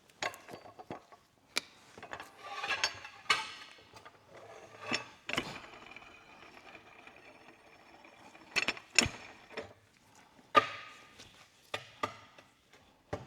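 Scattered knocks, clinks and short scrapes of hand tools and metal parts being handled during work on a car, irregularly spaced, with a few sharper knocks in the second half.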